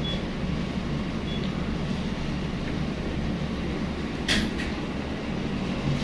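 Steady low hum of running machinery, with a brief scrape about four seconds in.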